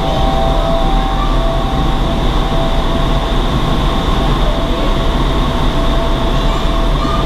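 Steady, loud rush of high-speed air in an indoor skydiving vertical wind tunnel, with a few steady tones over it.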